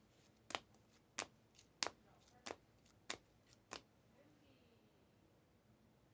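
Trading cards tapped down one at a time on a table, six sharp clicks at an even pace of about one every two thirds of a second, then a pause.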